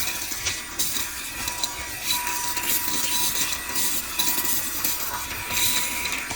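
Handheld car vacuum cleaner running, with a steady motor whine under a suction hiss that swells and fades repeatedly, as air flow changes at the nozzle.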